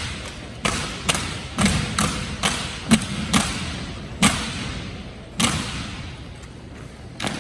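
Drill team performing an armed exhibition routine: about ten sharp, echoing impacts of drill rifles and boots in a large hall. The impacts come every half second or so at first and are sparser in the second half.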